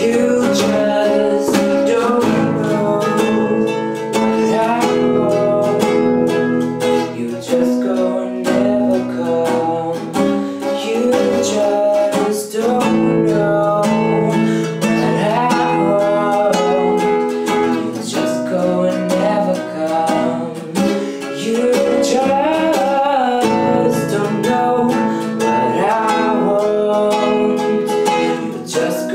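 Acoustic guitar playing chords with a voice singing over it.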